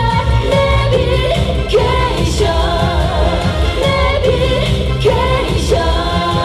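A woman singing a Korean pop song into a handheld microphone over a backing track with a steady beat.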